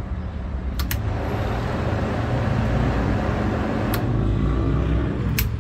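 Ryobi 18-volt One+ P3320 portable fan running, with a low hum and a steady rush of air. Its rocker speed switch clicks about a second in, and the airflow grows louder after it. Further clicks come near four and five and a half seconds.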